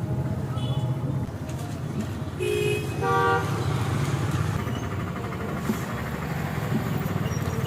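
Road traffic: a steady low engine drone, with two short vehicle horn honks in quick succession about two and a half seconds in.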